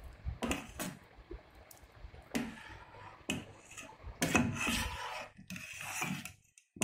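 Metal ladle stirring thick, freshly cooked rice pudding in a stainless steel pot, scraping the pot and moving through the rice and milk in irregular strokes, the loudest about four seconds in.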